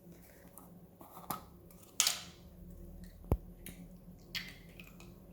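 Slime being squeezed and pulled apart by hand: scattered crackles, pops and clicks, the loudest a short crackle about two seconds in and a sharp click a little after three seconds.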